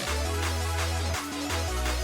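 Electronic background music with a heavy bass line and a steady beat.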